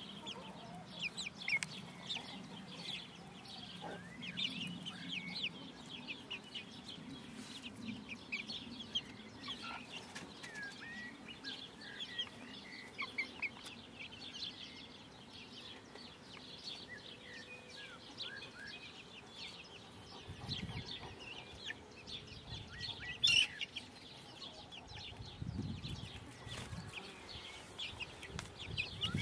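Five-week-old bantam Wyandotte chicks peeping continuously: many short high chirps, some sliding in pitch. One sharp click about three-quarters of the way through.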